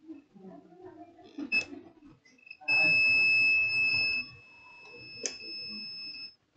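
Multimeter continuity beeper sounding a steady high beep, loud for about a second and a half and then softer, after a couple of short chirps as the probe finds its contact. The beep shows continuity between the USB charging port's middle (ID) pin and the pins of the laptop's EC chip.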